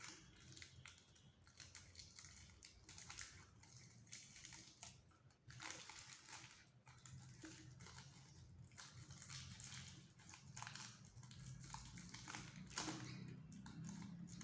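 Faint crinkling and snipping of gift wrap being trimmed around the end of a cardboard tube, in short irregular crackles.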